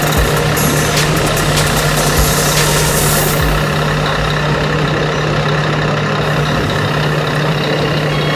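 RC Scania truck's electronic sound module playing a V8 diesel truck engine idling steadily, with a few sharp clicks in the first three seconds.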